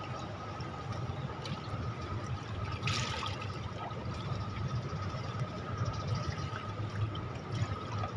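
Swimming-pool water sloshing and lapping at the pool edge, with a louder splash about three seconds in as a swimmer ducks under. A low steady hum and a thin, high steady tone run underneath.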